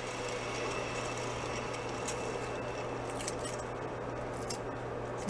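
Steady low electrical hum, with a few faint clicks and scuffs as a steel motorcycle exhaust pipe is turned over in gloved hands.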